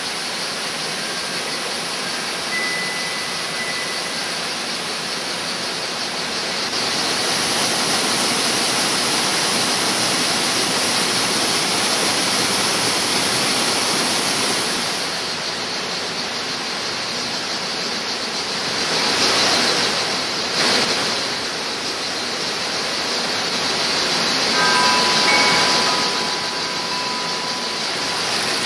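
Steady rushing sound of flowing water. It grows louder and brighter about seven seconds in, eases after about fifteen seconds and swells twice more, with a few faint high tones near the end.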